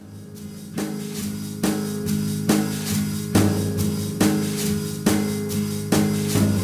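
Instrumental music with a steady drum beat, a hit a little more than once a second, fading in over the first second.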